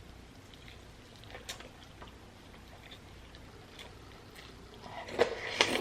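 Close-up chewing of a turkey leg in alfredo sauce: faint scattered mouth clicks, then a cluster of louder smacking sounds about five seconds in.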